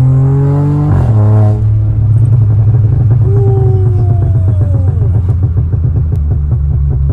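Tuned VW Polo TSI with downpipe and full exhaust, heard from inside the cabin. The engine note rises under acceleration and breaks at a DSG upshift about a second in. A long, continuous run of exhaust pops and crackles follows off throttle, with a brief falling whine in the middle.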